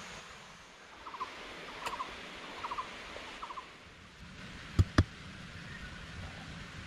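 Two sharp chops of a machete into a wooden stick, a fifth of a second apart, about five seconds in. Before them a short rattling call of three or four quick clicks repeats four times, each group under a second apart.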